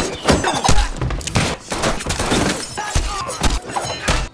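Movie fight-scene sound effects from a knife fight among glass display cases: a rapid run of hard hits and thuds with glass shattering.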